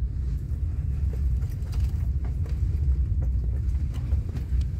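Railway station ambience: a steady low rumble with a few faint clicks and knocks.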